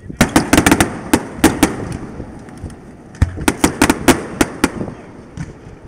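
Fireworks display: two rapid volleys of sharp bangs and crackles, the first right at the start and the second about three seconds in, each lasting about a second and a half.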